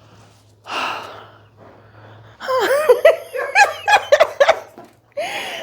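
A chiropractic patient laughing in a quick run of short, rising-and-falling bursts, her reaction to a neck adjustment, after a sharp breath about a second in.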